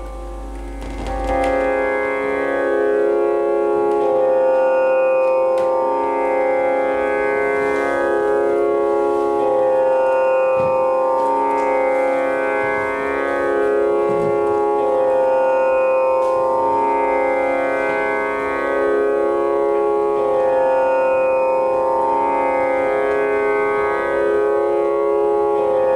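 Live electronic drone music: layered sustained tones that shift in a slowly repeating pattern every few seconds. The music swells in about a second in, over a low hum.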